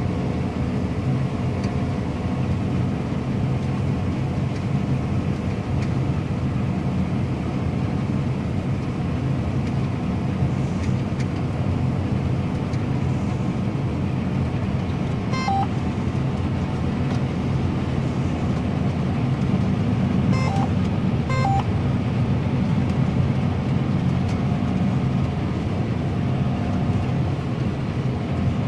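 John Deere combine harvester running steadily while cutting and threshing wheat, heard from inside the cab as a steady low drone of engine and machinery. Three short beeps sound partway through, two of them a second apart.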